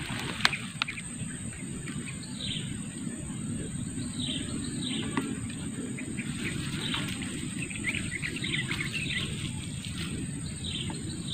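Outdoor pond-side ambience: birds give many short, falling chirps, over a steady high insect drone and a steady low rumble, with a couple of faint clicks in the first second.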